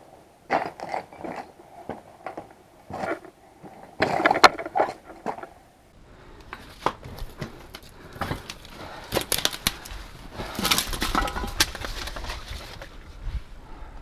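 Wind buffeting the microphone, rumbling low from about six seconds in. Over it come irregular crunches, scrapes and knocks of movement and handling.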